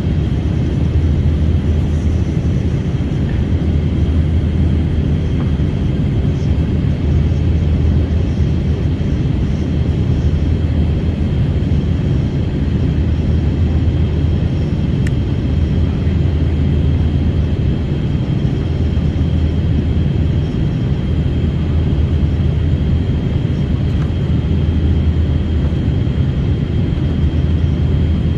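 Airliner cabin noise: a steady low rumble of the engines and airflow, with a faint steady high whine above it, unchanging throughout.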